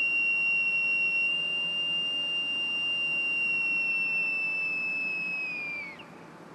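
Boatswain's pipe blown in one long, steady high note that sags slightly, then slides down and stops about six seconds in.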